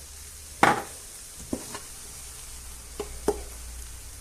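Omelette sizzling faintly in a frying pan, with a few sharp knocks: the loudest just over half a second in, then two near the middle and two more about three seconds in.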